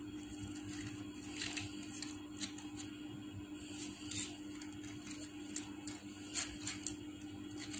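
Stiff paper petals rustling and crackling as hands press and arrange them onto a glued paper circle: a few short, scattered crackles, over a steady low background hum.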